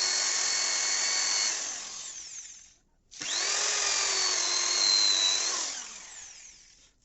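A small electric motor whines at high speed in two runs of about three seconds each. Each run starts abruptly and winds down to a stop.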